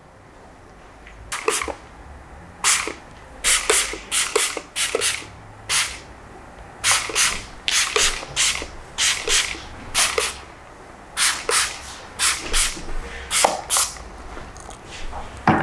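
Plastic spray bottle squirted over and over at the hair: about two dozen quick spritzes in irregular runs, each a short hiss, starting about a second in.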